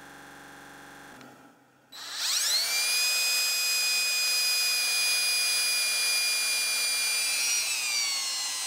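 Handheld drill spinning a small attachment against an aluminium nameplate. About two seconds in it spins up quickly to a steady high whine, and its pitch sags a little near the end.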